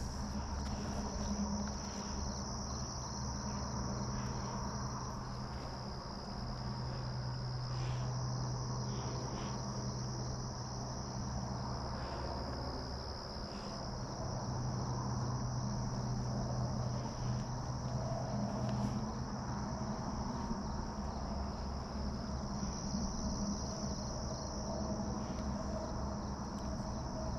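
A chorus of insects such as crickets keeps up a continuous high trill that shifts slightly in pitch every few seconds, over a low steady hum.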